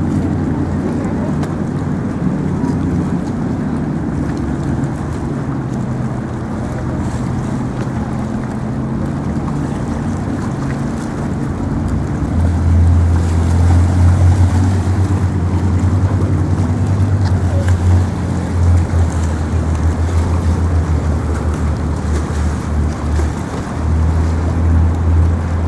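Low rumble of wind buffeting the microphone over a steady low hum. The rumble grows much louder and gustier about halfway through.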